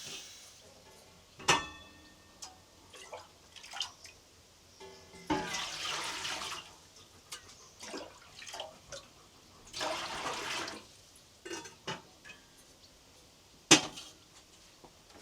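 Intermittent splashing and pouring of water, broken by knocks and clinks of things being handled; the sharpest knocks come about a second and a half in and near the end.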